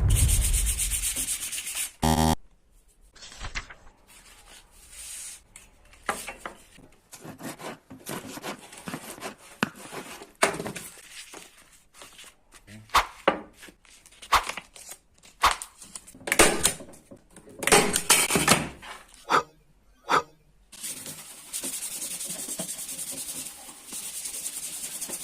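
Sandpaper rubbing on wood in irregular hand strokes. It opens with a loud swoosh and ends in a few seconds of steady hiss.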